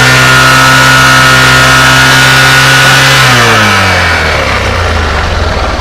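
Honda CG Fan 125's single-cylinder four-stroke engine held at high revs, then dropping back to idle about three seconds in, as it is revved for a test of the charging voltage from the stator.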